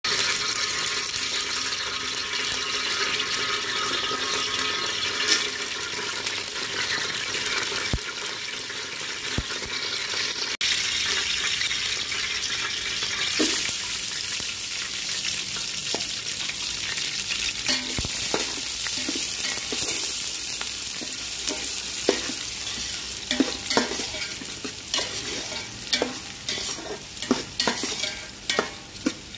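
Hot oil sizzling in an aluminium pot; about thirteen seconds in, sliced onions go into the oil and the hiss turns brighter. Then a metal spatula stirs the frying onions, scraping and tapping against the pot in quicker strokes near the end.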